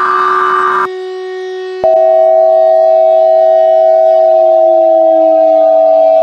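Synthesized emergency-alert siren wailing at a held pitch under a burst of static that cuts off about a second in. About two seconds in, a loud steady alert tone starts while the siren's pitch slowly falls.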